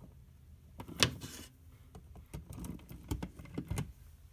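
A power cord and plug being handled and pushed into a wall outlet: one sharp click about a second in, then a run of lighter clicks and knocks.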